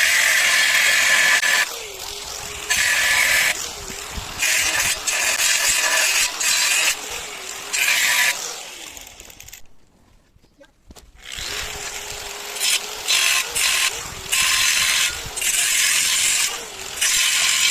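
100 V MIG welder's arc crackling and sizzling in short on-off bursts of about one second each, laying down stitch welds on steel, with a pause of a couple of seconds about halfway through.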